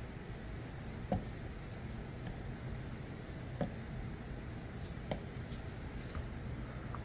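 Two-part resin being stirred in a mixing cup: a stir stick scraping around the cup, with a few light taps against its side.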